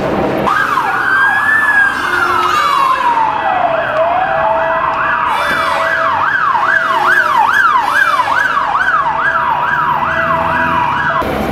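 Emergency vehicle sirens sounding together: one wails slowly down and back up while another yelps rapidly, about two sweeps a second. The sirens start about half a second in and cut off abruptly near the end.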